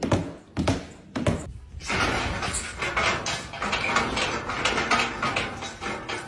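A golden retriever's booted paws clomping on a hardwood floor, a heavy step about every half second for the first second and a half. This gives way to about four seconds of dense, scratchy clattering.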